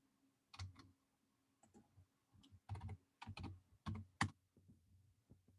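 Computer keyboard typing: a scattering of faint, irregular key clicks, bunched more closely in the middle of the stretch.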